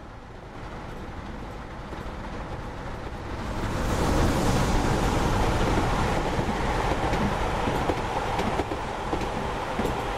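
Model railway trains running past close by: the wheels of the locomotives and coaches rumble steadily on the track with occasional clicks. The rumble grows louder about four seconds in as the Pullman coaches pass nearest.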